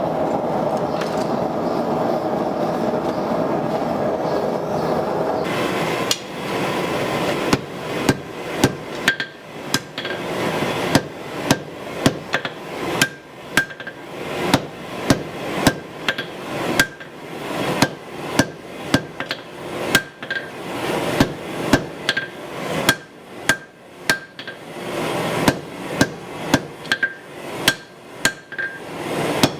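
A steady rushing noise for about the first six seconds, then hand-hammer blows on hot steel at the anvil, about one to two a second at an uneven pace, each with a short metallic ring: forging the tip of a Damascus knife blade.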